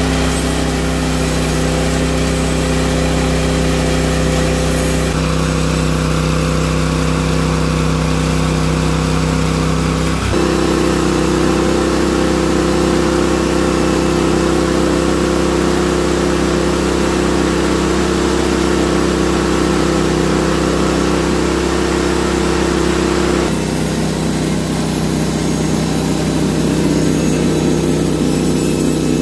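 Norwood HD36 bandsaw mill's engine running steadily with the blade driven. The engine note shifts to a new steady pitch about five seconds in, again about ten seconds in, and once more near the end.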